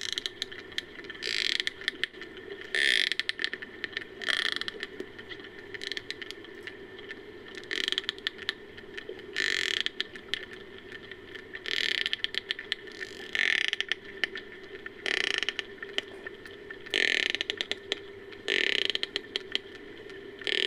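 Made-up Odobenocetops creature call built from sperm whale and dolphin recordings: a fast ratcheting train of clicks over a steady low drone, broken every one to two seconds by short, bright buzzing bursts.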